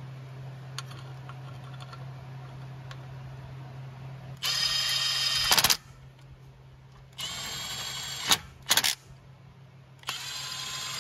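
Power driver on a long extension spinning in the water pump cover bolts, in three short runs, each ending in sharp clacks as a bolt seats. A steady low hum runs underneath.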